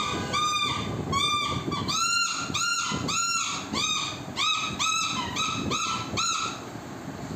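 Small plastic toy whistles blown by young children in a string of short toots, about two a second. Each toot bends up and back down in pitch. The tooting stops about six and a half seconds in.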